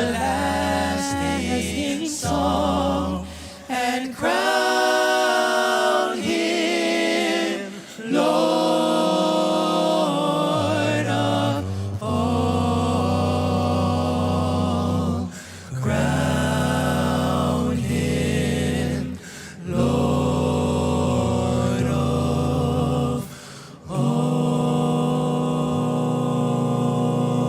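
A vocal group singing in close harmony with little or no accompaniment, a deep bass voice under long held chords. The phrases break off briefly every few seconds.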